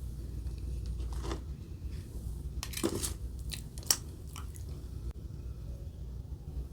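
A person biting and chewing Burger King fast food close to the microphone: a handful of crunchy bites, the loudest cluster about three seconds in, over a steady low hum.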